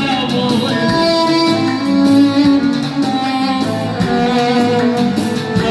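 Electronic keyboard playing an instrumental melody through the PA, with a run of held notes over a steady accompaniment.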